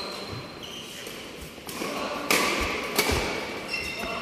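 Badminton rackets striking a shuttlecock in a doubles rally, with two sharp smacks about a second apart in the second half, and brief high squeaks of shoes on the court floor.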